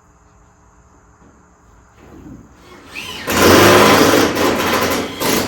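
A handheld power screw gun runs hard for about two seconds, starting about three seconds in, driving a self-drilling sheet metal screw into body panel steel. It stops briefly and then starts again near the end.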